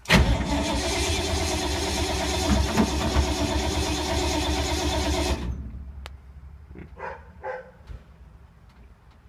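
A 1952 Ford's starter cranking the engine with a steady rhythm for about five seconds without it catching, then stopping. The engine won't start after sitting for months.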